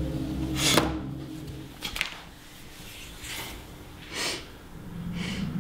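Ragged, heavy breathing and sniffing of someone crying: about five sharp breaths, roughly a second apart. Low held background music fades out in the first second.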